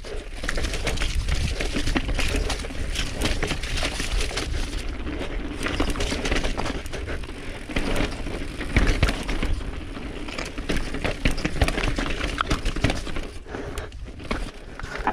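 Mountain bike rattling over rock and rough ground: a dense, irregular clatter of knocks and clicks from the tyres, chain and frame, over a steady low rumble.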